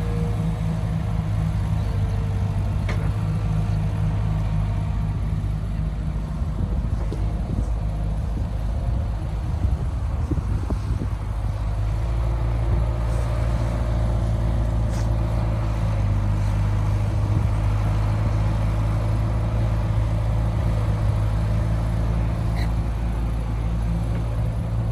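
Heavy earthmoving machine's diesel engine running steadily, a low even drone with a slight drop in pitch about halfway through.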